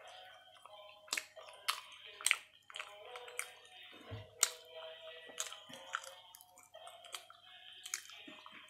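Close-up chewing and biting of toasted sandwich, irregular crisp clicks and crunches over faint steady background music.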